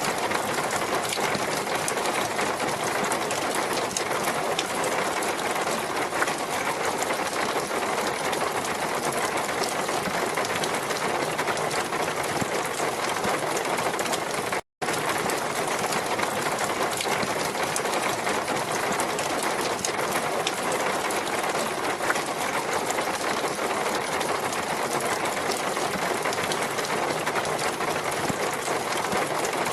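Steady, dense water noise, even and without pulses, with one brief cut to silence about fifteen seconds in.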